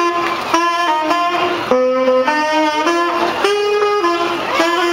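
Background music: an instrumental stretch of a song, a melody of held notes changing about every half second.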